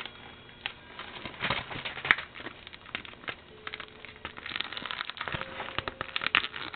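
Crinkling, rustling and scattered taps and clicks as a DVD case and its packaging are handled close to the microphone, with one sharper click about two seconds in.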